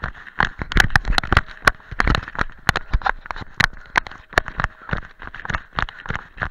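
Trail-running shoes pounding down a steep, stony path covered in dry leaves: quick, irregular crunching footfalls, several a second, over a steady hiss.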